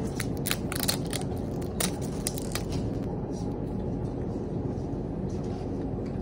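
Plastic cap of a small drink bottle being twisted open: a string of small clicks and crackles over the first few seconds, over a steady low hum of shop background noise.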